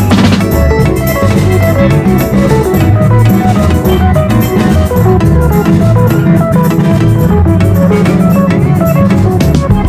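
Upbeat Caribbean-style band music: steel pans over electric bass and drums with a steady beat.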